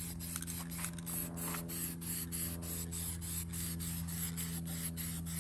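Aerosol can of high-heat spray paint hissing in quick, repeated short bursts as the steel stove is painted black, over a steady low hum.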